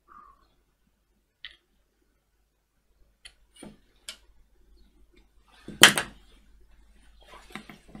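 Light clicks of small parts being handled, a sharp knock about six seconds in, then near the end a quick run of clicks from the tactile pushbutton switches of a 4x4 hex keypad being pressed.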